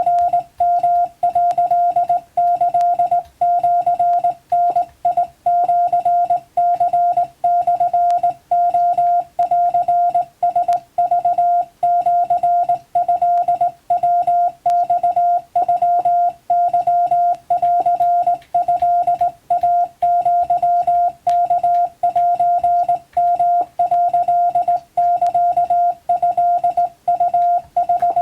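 Morse code (CW) tone, a single pitch near 700 Hz keyed on and off in a steady stream of dots and dashes for receiving practice.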